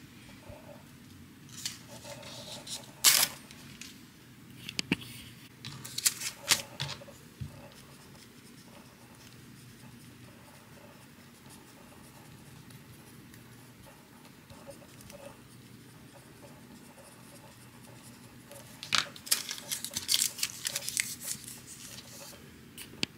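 A page torn off a tear-off desk calendar, with sharp paper rips in the first few seconds, then faint pencil scratching on the paper, and near the end the paper being folded and creased with crisp crinkling.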